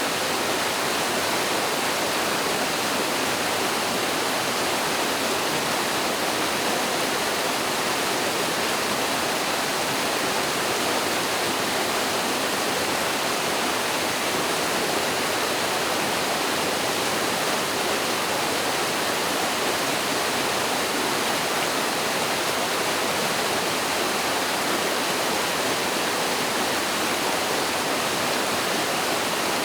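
Mountain stream water pouring over a small waterfall: a steady, even rush with no breaks or changes.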